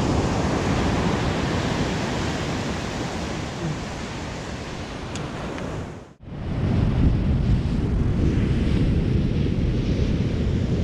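Ocean surf breaking on a beach, with wind buffeting the microphone. The sound drops out for a moment about six seconds in, then resumes.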